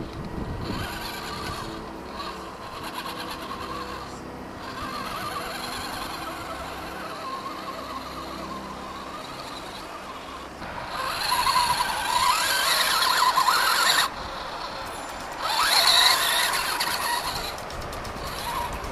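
Electric motor and gearbox of a 1/12-scale RC crawler truck whining as it climbs rock. The whine gets louder and sweeps up and down in pitch in two throttle bursts, one about eleven seconds in lasting around three seconds, and another shortly after.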